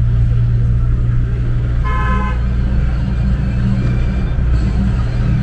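Steady low drone of a car's engine and road noise, with one short vehicle horn toot about two seconds in.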